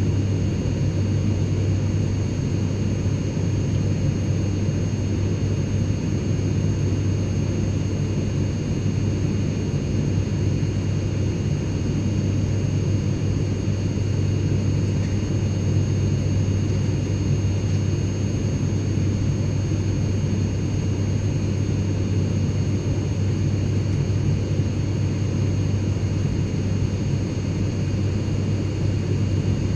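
Steady cabin noise inside an airliner in flight: a constant low engine and airflow rumble with a hum, and a few faint steady high whines above it.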